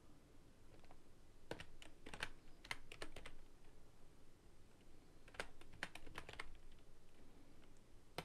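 Faint computer keyboard typing in two short runs of keystrokes, the first about a second and a half in and the second about five seconds in.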